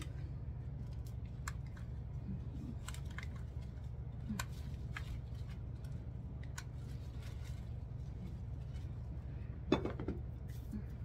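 Scattered small clicks and ticks from handling artificial flower stems and a hot glue gun, over a steady low hum, with one louder knock near the end.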